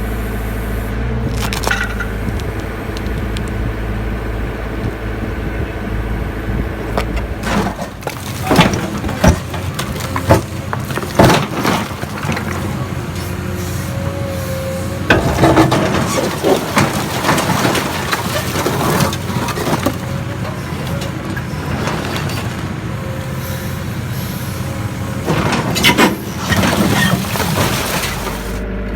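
Concrete cracking and breaking apart under a hydraulic rock splitter, with clusters of sharp cracks and knocks, over a steadily running engine of the hydraulic power unit. The cracking comes in three bursts, about a quarter, halfway and near the end.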